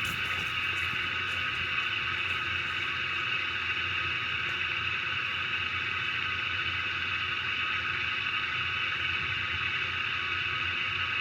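Steady mechanical background hum with a high whining edge, unchanging throughout.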